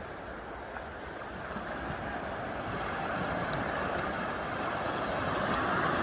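Sea waves: a steady rushing of surf, growing gradually louder.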